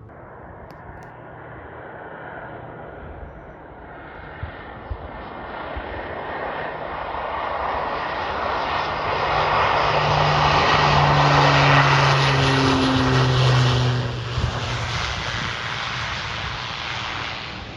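Fixed-wing aircraft engine noise building up as the plane approaches. It is loudest about two-thirds of the way through, with a low steady hum, then fades as the aircraft moves away.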